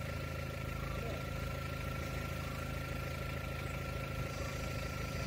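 A vehicle engine idling steadily, with a thin steady tone above it.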